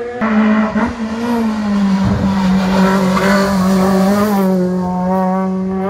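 Peugeot 106 rally car's engine pulling at high revs through a hairpin, its note held nearly level with a slight dip about a second and a half in. There is tyre noise as it goes through the bend.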